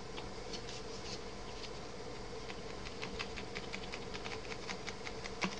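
Small irregular clicks and scratches of a paper card being worked into the neck of a plastic glitter Christmas ornament, over a steady room hum.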